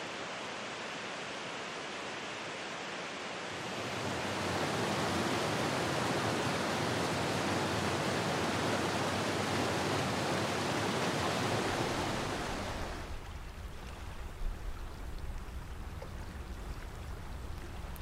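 Waterfall water falling and splashing in a steady rushing hiss. About four seconds in it gets louder, and about thirteen seconds in it drops to a quieter, lower hush with a few faint ticks.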